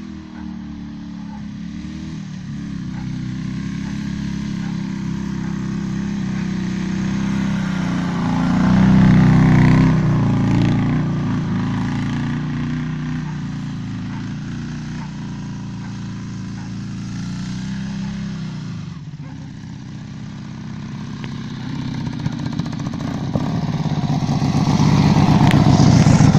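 Dnepr MT-11 sidecar motorcycle's flat-twin boxer engine running and revving as it is ridden. It grows loud about nine seconds in, fades, then is loudest near the end as it comes close.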